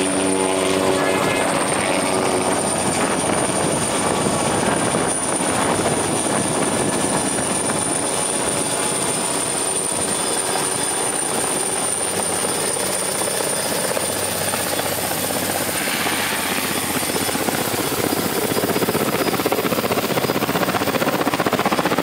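Heavy-lift helicopter flying close by, its rotor and engine making a steady din that grows louder near the end as it comes overhead.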